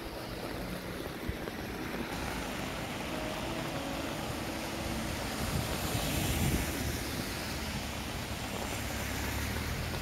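Steady hiss of falling rain, with wind buffeting the microphone and swelling about six seconds in. Faint soft music notes sit underneath.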